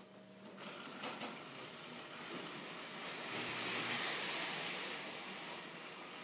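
Lionel model train running on its track, a steady rushing hiss with a faint hum underneath, swelling to its loudest about four seconds in.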